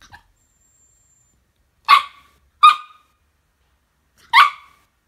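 Small white fluffy spitz-type dog giving three short, sharp barks: two in quick succession about two seconds in, then a third a couple of seconds later. These are wake-up barks aimed at a sleeping person.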